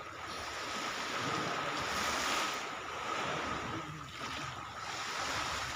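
Small waves washing onto the shore, the sound swelling and easing in slow surges, with wind rumbling on the microphone.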